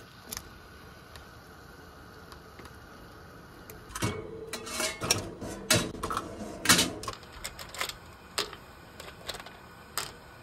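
Scallop and hard-clam shells clattering against each other and the pot as they are tipped into a pot of water. After a few seconds of low steady hiss, a run of sharp, irregular clicks and clacks starts about four seconds in.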